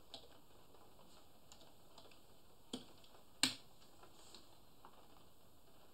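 A few faint computer keyboard and mouse clicks, the two loudest less than a second apart in the middle, over low steady hiss.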